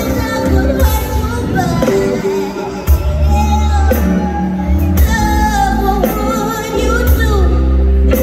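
Live band playing a song with a woman singing: a sung melody over heavy bass and a drum hit about every two seconds, in a large arena.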